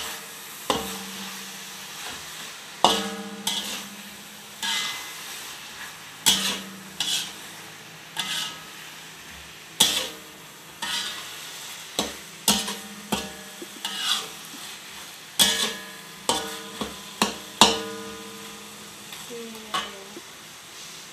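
A spatula stirring beef and rendang spice paste in a pot, knocking and scraping against the pot about once a second at an irregular pace, some knocks leaving a short ring, over a faint sizzle of frying.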